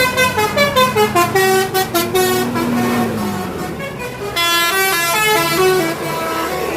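Bus's Basuri multi-tone musical horn playing a 'telolet' tune: a quick run of short notes stepping up and down in pitch, then a louder stretch of longer held notes about four and a half seconds in, over a low engine hum.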